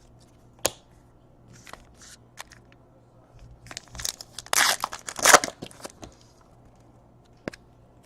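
A trading-card pack wrapper being torn and crinkled open, loudest between about four and five and a half seconds in, with a few light clicks from handling cards before it.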